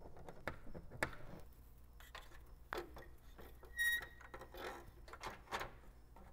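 Scattered light clicks and taps of small screws and plastic parts as the Toyota badge is screwed onto the new plastic grille, with a brief high squeak about four seconds in.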